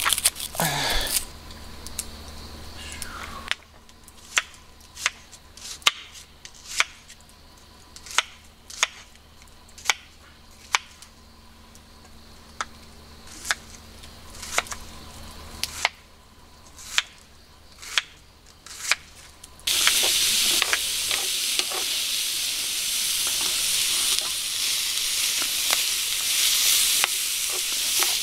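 Knife chopping an onion on a wooden cutting board, sharp single knocks about once a second. About twenty seconds in, the chopped onion goes into a hot frying pan with butter and starts sizzling loudly while it is stirred with a wooden spatula.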